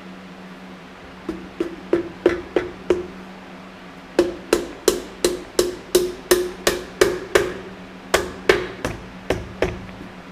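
Light hammer taps on a piston and ring compressor, seating the piston down into the cylinder bore of a Continental F162 engine block. About three taps a second in three short runs, each tap ringing briefly.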